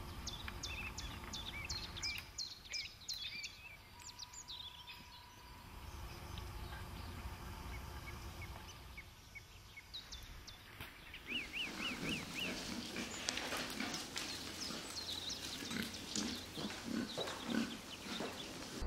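Wild boar grunting, a rapid string of low grunts through the second half. Faint high chirps in the first few seconds.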